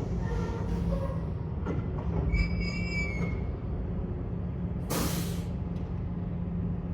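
Metal tiller parts being handled during reassembly of the transmission cover: light clicks, a short high metallic squeal about two and a half seconds in, and a brief rushing scrape about five seconds in, over a steady low hum.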